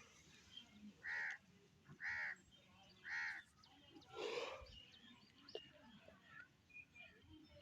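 A bird calling in the background: three short calls about a second apart, then a longer, rougher fourth call.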